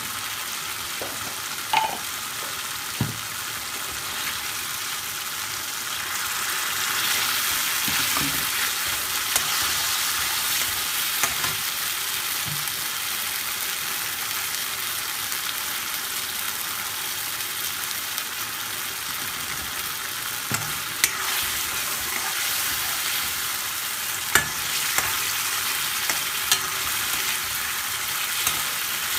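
Chicken karahi curry sauce sizzling in a karahi on a gas hob, stirred with a metal ladle that clicks against the pan now and then. The sizzle grows louder about a quarter of the way in.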